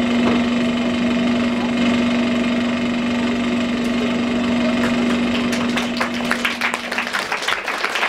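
A steady, loud drone with one held low note, which stops about seven seconds in; audience applause starts around six seconds in and grows toward the end.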